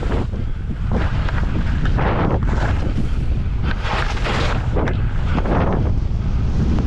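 Wind rumbling on the microphone while skiing, with skis hissing through snow in repeated swells at each turn, roughly once a second.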